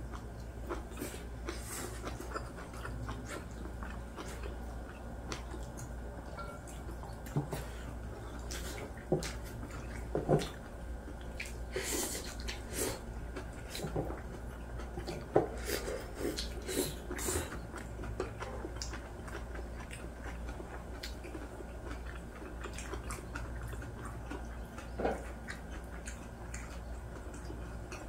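Two people eating braised pork back ribs: chewing, slurping and sucking meat off the bones, with scattered light clicks of chopsticks and dishes, over a steady low hum.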